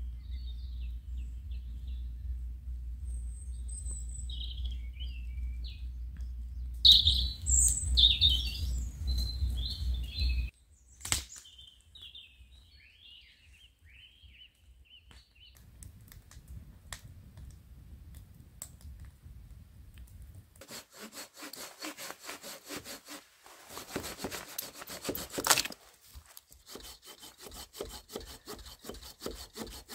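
Small birds chirping over a steady low rumble for the first half. From about twenty seconds in, a hand saw cuts through a branch with quick back-and-forth strokes.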